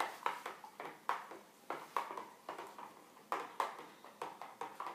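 A spoon stirring fresh citrus juice in a plastic container, knocking and clinking against its sides in a quick, irregular series of about three taps a second.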